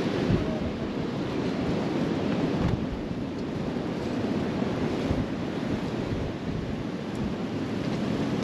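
Sandstorm wind buffeting the microphone in uneven gusts, over the wash of surf.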